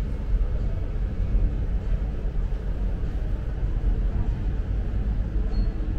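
Steady low rumble of a large ferry's engines and onboard machinery, heard from inside the ship.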